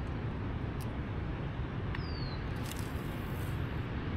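Steady wind rumble buffeting the microphone, with a few light clicks and one brief high falling chirp about two seconds in.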